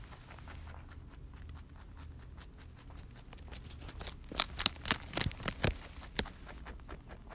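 Close-up chewing of crunchy food: a steady run of fine crackles, with about seven louder, sharp crunches between about four and six seconds in.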